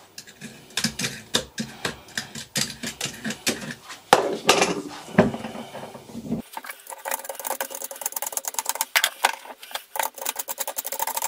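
Metal hand tool scraping and picking at old rubber bush material inside the steel eye of a torque reaction arm held in a bench vise: irregular scrapes and clicks that turn into rapid scraping in the last few seconds.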